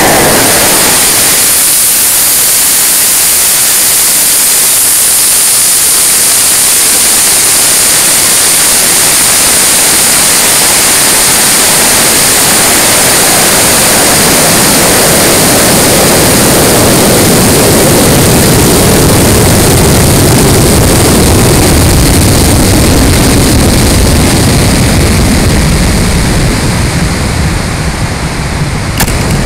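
Loud, steady rushing noise heard from inside a high-power rocket climbing on an N2200 solid motor: the motor's burn after liftoff, then air rushing past the fiberglass airframe through a supersonic climb and coast. The deeper part of the rush grows stronger about halfway through and eases again near the end.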